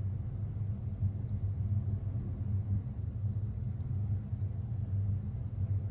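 A steady low rumble of background noise, with a few faint small ticks.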